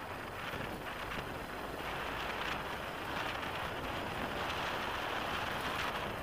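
Motorcycle riding along a sandy dirt road: a steady rush of wind on the microphone with the bike's engine and tyres underneath, growing a little louder toward the end.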